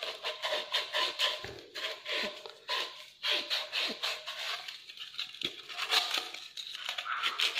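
Sandpaper rubbed by hand over the end of a blue PVC pipe fitting: short rasping back-and-forth strokes, a few a second, with brief pauses. It is scrubbing old adhesive off the plastic so the new solvent cement will grip.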